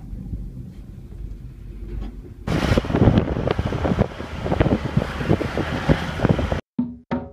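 Low rumble of a moving passenger ropeway cabin with wind on the microphone. About two and a half seconds in, a louder rattling, clattering noise takes over, then cuts off abruptly near the end.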